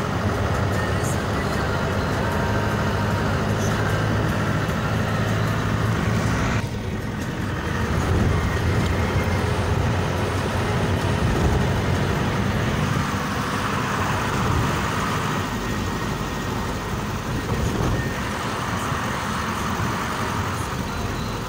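Engine and tyre noise of a moving car, heard from inside the cabin: a steady rumble with a short dip about six or seven seconds in.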